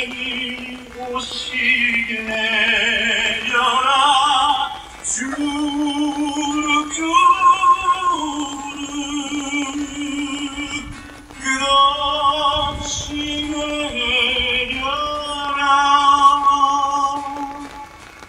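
A tenor voice singing a slow song, holding long notes with wide vibrato and gliding from one to the next.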